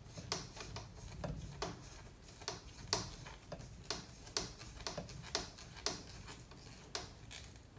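Light, irregular clicks, about two a second, as a 2.5 mm hex driver is turned to drive a screw into an RC truck's chassis.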